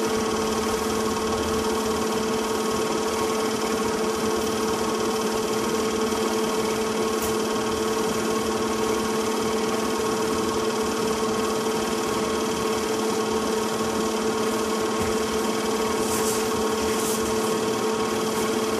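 A steady hum of two even tones over a faint mechanical whir, unchanging throughout; no car engine is heard.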